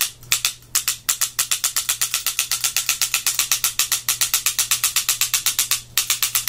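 Azodin Blitz electronic paintball marker fired rapidly in PSP ramping mode: a fast even run of sharp clicks, about ten or eleven a second, broken by a few short pauses, the longest near the end.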